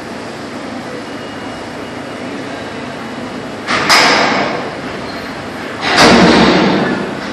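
Subway train standing at a station platform: a steady rumble with two loud, sudden bursts that each fade over about a second, the first about four seconds in and the second, louder, about two seconds later.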